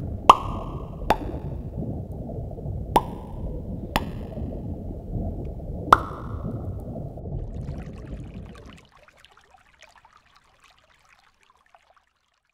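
Water drops plopping over a steady low rush of water: five sharp drips, each with a short ringing ping, in the first six seconds. The water noise cuts off about nine seconds in, leaving only a faint crackle.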